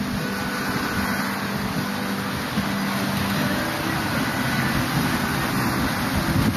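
Steady rushing of wind and sea around a Pogo Mini 6.50 sailboat under way, with a low held tone that shifts in pitch a few times.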